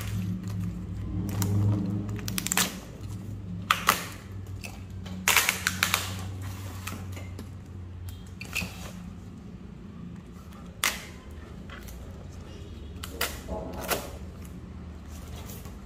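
Handling noises of unboxing: scattered clicks and knocks, with a cluster about five seconds in, as a plastic-wrapped pegboard is moved and lifted out of its cardboard box, over a steady low hum.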